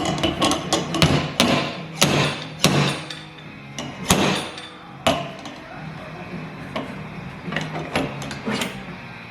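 Body hammer striking the dented door panel of a Jeep Wrangler, working the sheet metal out against a dolly: an uneven run of sharp blows, heavier in the first half, then lighter taps.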